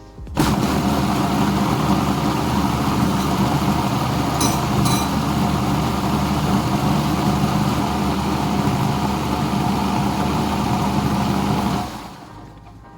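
Electric kitchen blender motor running steadily for about eleven seconds, switched on just after the start and cut off about a second before the end.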